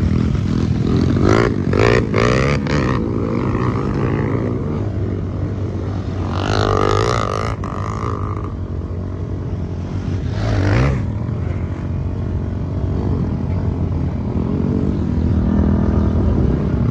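Several motorcycle engines running as the bikes ride along a dirt trail, the engine pitch rising and falling with the throttle.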